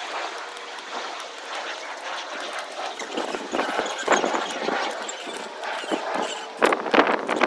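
A hand tool clicking and knocking against the metal foot mount of a roof-rack crossbar, with a few sharp clicks near the end, over a steady rushing background noise.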